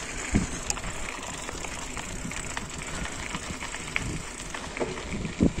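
Bicycle being ridden: a steady rolling noise with scattered ticks and rattles from the bike, and two louder thumps, one just after the start and one near the end.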